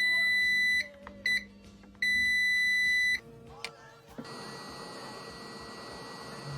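An electronic beeper sounds a steady high-pitched beep three times: a long beep, a short blip and another long beep. From about four seconds in there is a steady low hiss with a faint hum.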